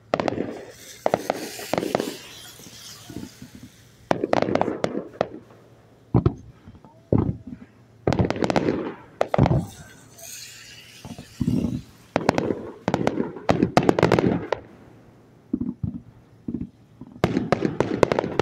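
Fireworks display: volleys of sharp bangs and crackling come in clusters every second or two, with short lulls between them, and are busiest near the end.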